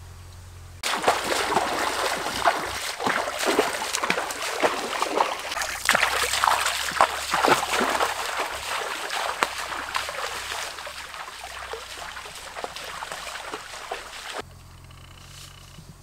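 Water splashing and sloshing as a person wades barefoot through a shallow stream, each step kicking up water. It starts suddenly about a second in and stops suddenly near the end.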